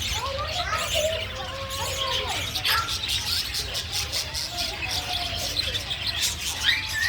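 Birds chirping and calling, many short rising and falling notes overlapping.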